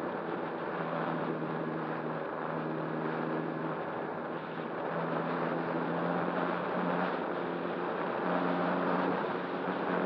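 Motor and propeller of a radio-controlled ASW 28 model glider under power, a low hum that cuts out and returns several times, under a steady rush of wind over the model's onboard camera.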